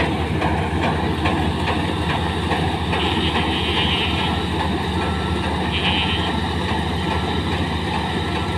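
New Holland TC56 combine harvester running steadily under its diesel engine while harvesting sunflowers, a continuous low machine drone with no change in pace.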